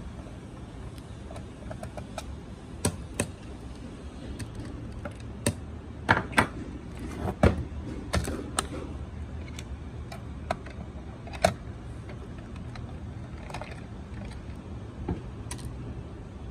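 Scattered clicks and knocks of a screwdriver and hands on the plastic case of a Canon SELPHY CP1300 photo printer as its bottom screws are undone and the printer is shifted about, with a steady low hum underneath. The knocks come in small clusters, most of them around the middle.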